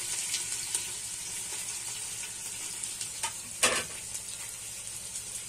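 Freshly added sliced onions sizzling in hot oil in a cooking pot, together with bay leaves and green chillies: a steady frying hiss with scattered small crackles and one louder click a little after halfway.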